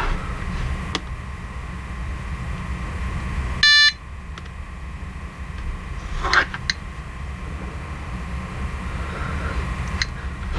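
GQ GMC-600 Plus Geiger counter giving one short electronic beep about four seconds in as it starts up. A few faint clicks come before and after it, over a steady low background hum.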